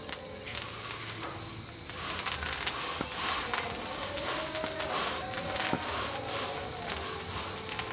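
Fresh tea leaves being pan-roasted in a wok, stirred and pushed around the metal by a gloved hand: a steady dry rustling and scraping with scattered small clicks.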